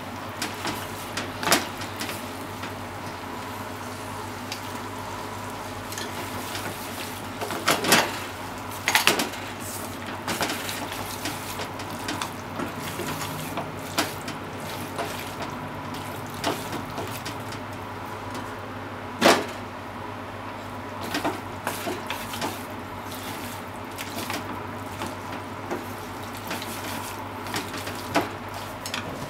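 Pork and vegetables sizzling in a frying pan as they are stir-fried with chopsticks, with scattered sharp clacks of the chopsticks knocking and scraping against the pan.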